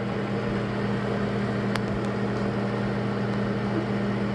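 Microwave oven running, a steady hum of its transformer and fan, with one faint click a little under two seconds in.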